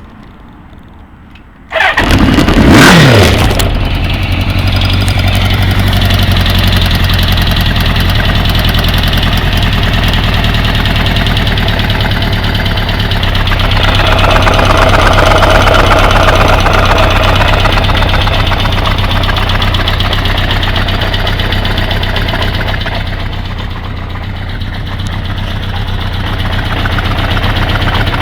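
Kawasaki GPZ550 air-cooled inline-four motorcycle engine starting about two seconds in, then running steadily with the revs rising for a few seconds around the middle before settling. It carries a ticking, clacking noise from the engine that appeared after a head gasket change and whose cause the owner cannot find, having ruled out the cam chain tensioner.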